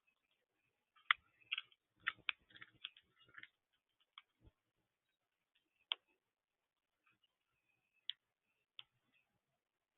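Faint, scattered short chirps and chip notes of small birds, a quick run of them a second or two in, then single chips every second or two.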